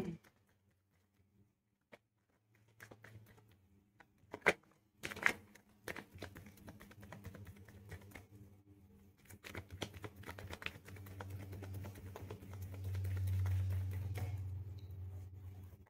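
A deck of tarot cards being shuffled by hand: a run of quick soft clicks and rustles as the cards slide and tap against each other, with two sharper snaps about four and five seconds in. A low hum swells underneath in the second half.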